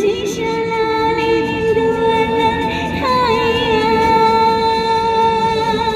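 Woman singing a Cantonese song into a handheld microphone over a backing track, holding two long notes, the second beginning about halfway through.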